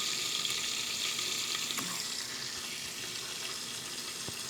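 Butter and popcorn kernels sizzling in a covered pan on the stove: a steady frying hiss, with a couple of faint ticks, before the corn has really started popping.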